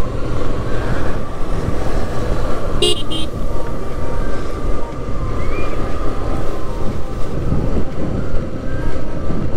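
Yamaha Fazer motorcycle ridden along a road, its engine running under heavy wind rumble on the microphone. A horn toots briefly, twice in quick succession, about three seconds in.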